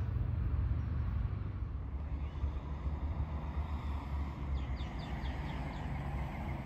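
Sydney Trains Waratah Series 2 electric double-deck train approaching along the line, a steady low rumble with a faint electric motor whine that shifts in pitch partway through.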